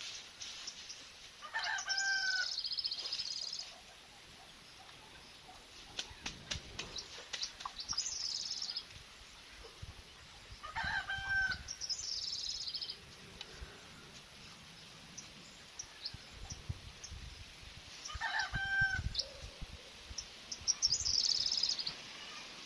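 A rooster crowing three times, each crow about a second and a half long and about eight seconds apart, with shorter high-pitched bird chirps in between.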